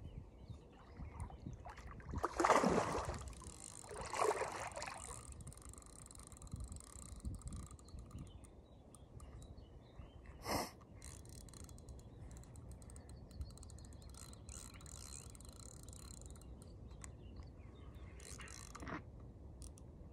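Outdoor ambience: steady low background noise with faint bird calls, two brief bursts of noise a few seconds in, a short sharp sound about ten seconds in and another brief noise near the end.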